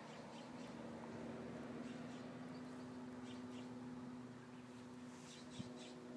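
Faint, short high chirps from birds, a few in quick succession about five seconds in, over a steady low hum.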